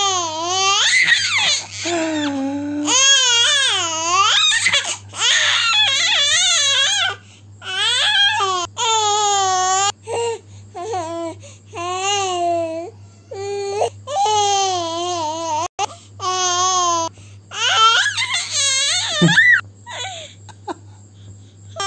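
A baby vocalising in a long string of high-pitched, drawn-out squeals and babbles, each about a second long with short breaks between, while the baby smiles and laughs.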